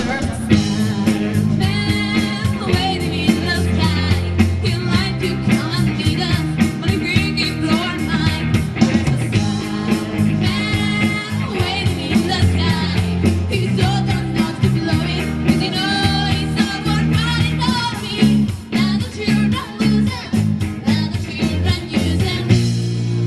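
Live rock band playing: a woman singing lead with vibrato over electric guitar and drum kit, with a steady beat.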